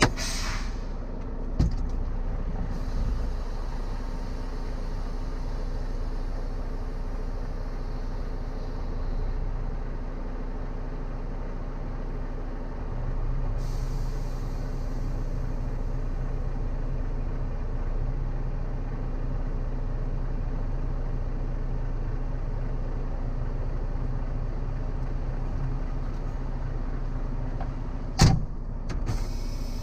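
Semi-truck diesel engine idling steadily, heard from inside the cab. There is a short air hiss right at the start, and a second steady hum joins about halfway. A sharp knock comes near the end.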